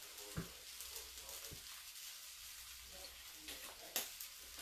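Faint steady sizzle from a frying pan of jackfruit and vegetables, with a few short clicks from a ketchup squeeze bottle being handled over a sandwich.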